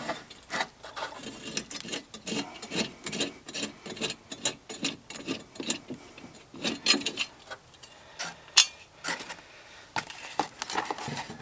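Irregular metal clinks, knocks and rubbing as the mower's steel blades and their concave washers are worked off the blade carrier and set down.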